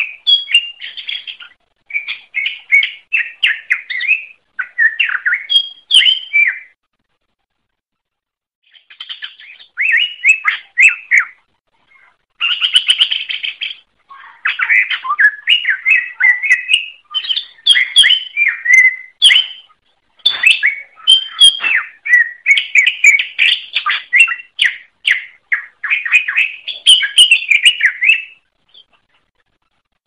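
Cucak ijo (green leafbird) singing in long bursts of rapid, varied chattering and whistled notes, with a pause of about two seconds around seven seconds in and shorter breaks later.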